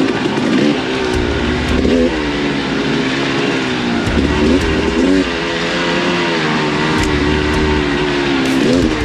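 Dirt bike engine being ridden, its pitch rising and falling several times as the throttle opens and closes, with wind noise.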